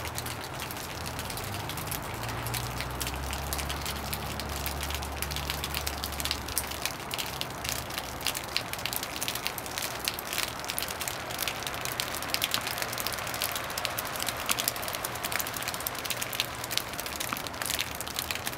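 Rain pattering: a steady hiss dotted with many sharp, irregular drops that grow denser after the first several seconds. A low rumble sits underneath in the first few seconds and fades out about seven seconds in.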